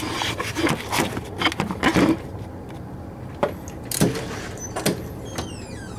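Handling noise: scattered clicks, knocks and rubs as the recording phone is moved and propped in place over the engine bay.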